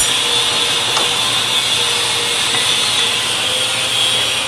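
Steady workshop machine noise: an even hiss over a low hum, running without a break.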